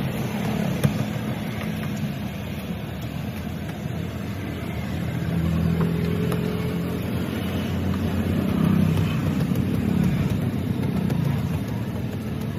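Street traffic going by: engines of passing vehicles rumbling, swelling and fading twice, with a short knock about a second in.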